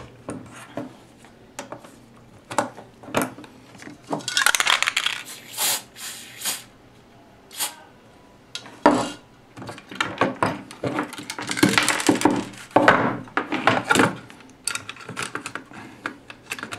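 An aerosol spray can sprayed onto a circuit board's solder side in bursts, the longest about four seconds in and again around eleven seconds in, among sharp clicks and clatter of the board and tools being handled.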